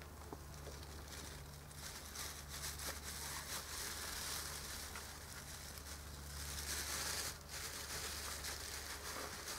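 Faint crinkling and tearing of a plastic garbage bag as a German Shepherd rummages in it with its muzzle, in irregular bursts.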